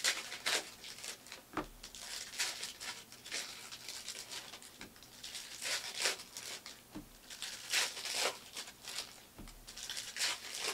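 Foil wrappers of basketball card packs crinkling and rustling as they are handled, in irregular short rustles.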